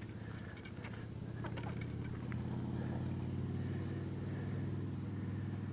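A motor engine droning steadily at a low pitch, growing slightly louder after about two seconds, with a few small clicks of handling in the first two seconds.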